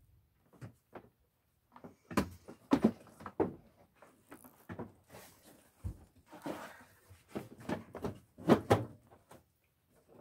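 Irregular knocks, thunks and rustles of gear being shifted and handled inside an enclosed cargo trailer, with the loudest bangs a couple of seconds in and again about eight and a half seconds in.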